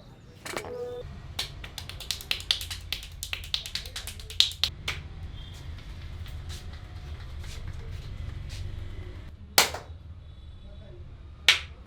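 A barber's hands making sharp clicks and pops during a cracking massage: a quick run of clicks for a few seconds, then two loud single cracks about two seconds apart near the end.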